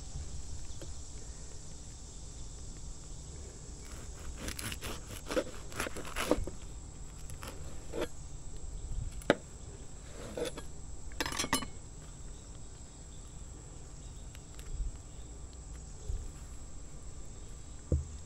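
Light knife-and-cutting-board knocks and scrapes as a crusty ciabatta sandwich is cut and handled, coming in scattered clusters. Behind them is a steady high chirr of insects.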